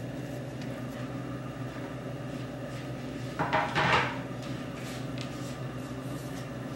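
A short rattling clatter about three and a half seconds in, from kitchen storage being opened as the rolling pin is fetched, over a steady low hum.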